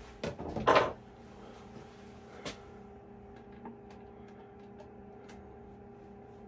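Hand-tool and hardware handling noises while a bracket is tightened: a brief loud scraping clatter just under a second in, then scattered small clicks and ticks, over a steady faint hum.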